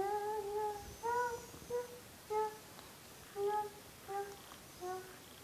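A toddler singing a simple tune to a baby doll in a high voice, one longer note and then short separate notes with small pauses between them.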